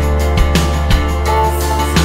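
Background music with a steady beat about twice a second over sustained bass notes.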